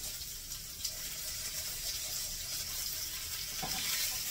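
Flour-dredged ground-beef patties sizzling in hot oil in a frying pan: a steady hiss with fine crackles that grows a little louder near the end. A brief scrape of the spatula in the pan comes about three and a half seconds in.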